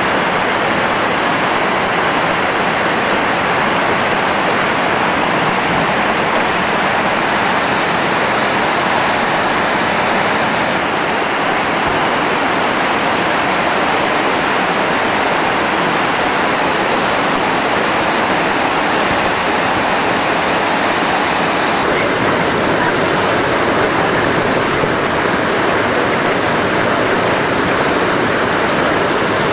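Whitewater rapids rushing loudly and steadily over rocks, with a slight change in tone about three quarters of the way through.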